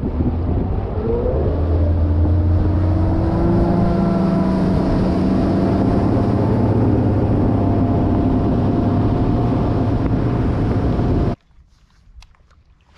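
Bass boat's outboard motor running at speed, with wind and water rush. Its pitch rises briefly about a second in, then holds steady until the sound cuts off suddenly near the end.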